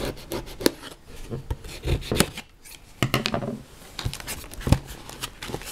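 Scissors snipping through the tape seals of a cardboard box, then the cardboard rubbing and scraping as the box is pulled open, with scattered clicks and knocks.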